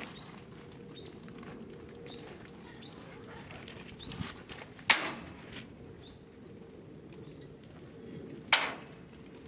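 Two sharp metallic strikes about four seconds apart, each ringing briefly: a hammer hitting the steel pipe frame of a greenhouse.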